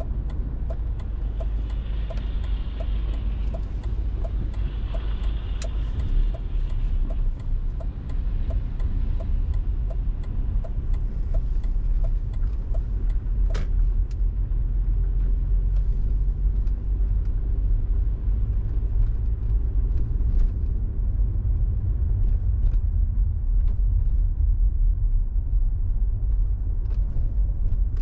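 Car driving, a steady low rumble of engine and road noise. Through the first half a regular ticking runs about twice a second, ending with one sharper click about halfway.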